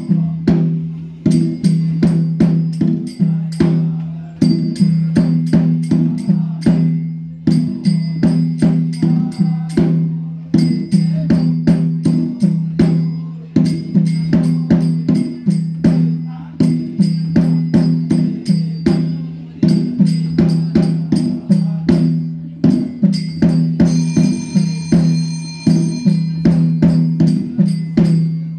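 Traditional Karbi dance music: fast, evenly repeated percussion strikes, several a second, over a steady low tone. A brief higher ringing joins near the end.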